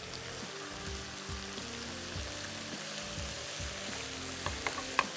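Sliced onions and ginger-garlic paste sizzling as they fry in hot oil in a nonstick pan, with a few sharp clicks of a spatula against the pan near the end.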